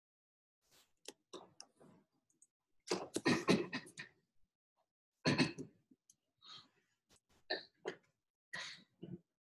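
A person clearing their throat and coughing a few times, with a few short clicks in between.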